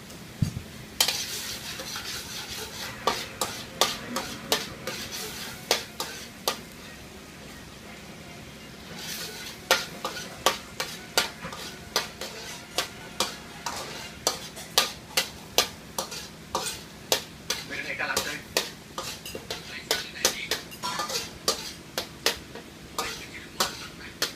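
Metal spatula scraping and clinking against an aluminium wok in quick strokes as food is stir-fried, with a frying sizzle underneath. The strokes pause briefly about a third of the way in, then resume faster.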